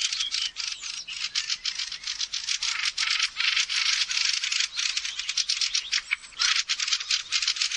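Many fieldfares giving rapid, chattering alarm calls all at once, a continuous clamour of overlapping notes: the colony mobbing a raven that threatens their nestlings.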